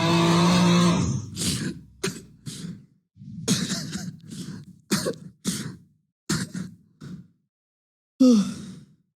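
Loud snoring meme sound effect: a man's long snore that rises in pitch, then a string of short, throaty snorts and gasps.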